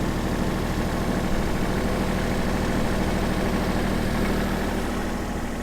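An engine idling steadily, easing off slightly near the end.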